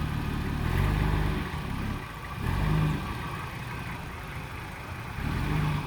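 Off-road 4x4 engine running, revved up three times in short bursts.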